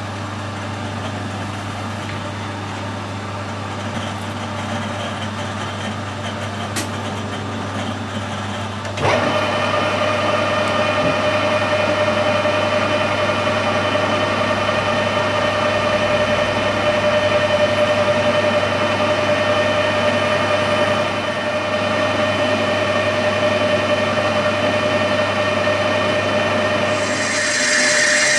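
Metal lathe running while machining 303 stainless steel bar, a steady mechanical hum with gear whine. About nine seconds in it gets suddenly louder with a higher steady whine, and near the end a brighter hissing cutting sound comes in as the insert turns the diameter.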